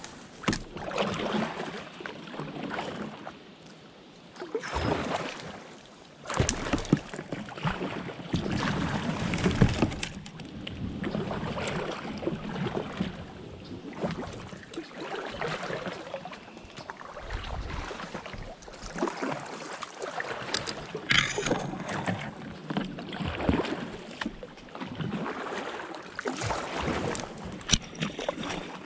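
Kayak paddle strokes in shallow water: splashing and dripping that swells and fades every couple of seconds, with a few sharp knocks.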